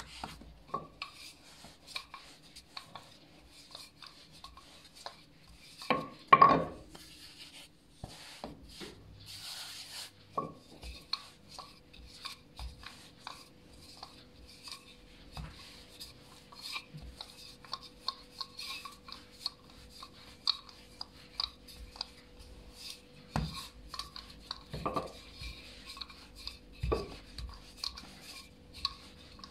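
Hands pressing and kneading a slab of pastry dough on a stone countertop, then a wooden rolling pin rolling it out: soft rubbing with many small taps and knocks, and a louder bump about six seconds in.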